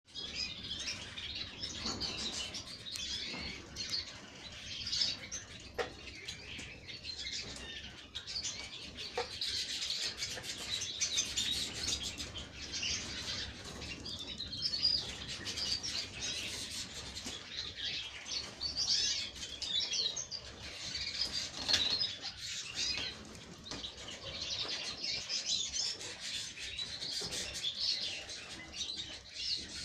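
Canaries chirping and twittering continuously, many short overlapping high calls, with a couple of light taps around six and nine seconds in.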